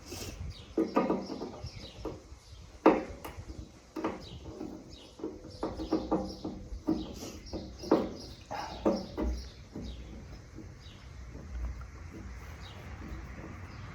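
Hand tap being turned into a drilled hole in metal, giving irregular creaks and clicks as it cuts, which stop about ten seconds in. The tap is cutting poorly because the hole was drilled off centre.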